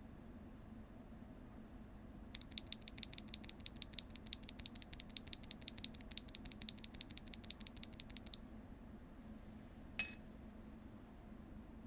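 Mechanical keyboard fitted with HMX Sonja rail bottom-out linear switches: a fast, even run of keystrokes, about ten a second, starting a couple of seconds in and lasting about six seconds. One louder keystroke follows near the end.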